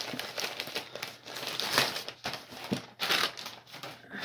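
Crinkly packaging being handled and unwrapped to get a book out: irregular crinkling and rustling, loudest about two and three seconds in.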